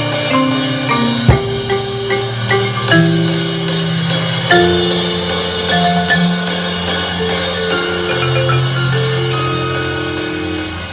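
A band playing its show music: held chords that change every second or two, over mallet percussion and a steady beat of about three clicks a second.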